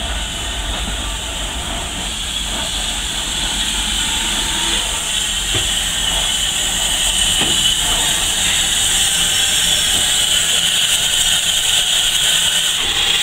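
Heritage railway train with a steady hiss that grows slowly louder, and a few faint knocks.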